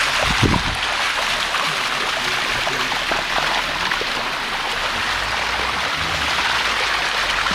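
Steady rush of waterfall water flowing over the rocks, with a brief low bump about half a second in.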